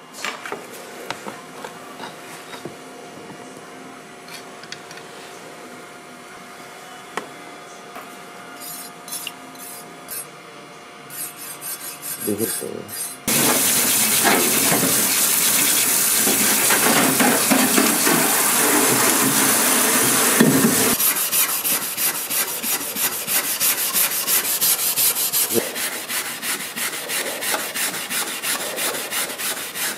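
Tap water starts suddenly about halfway through, rushing onto a steel knife blade in a steel sink while a brush scrubs it. After several seconds the water stops, and a stiff hand brush scrubs back and forth over the bare steel blade in quick, even strokes. Before the water starts there are only faint handling clicks over a low hum.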